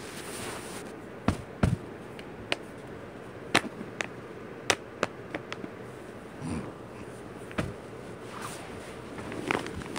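About a dozen sharp knocks and clicks at irregular intervals over a steady background hiss, the loudest in the first half, with a couple of duller thuds later on.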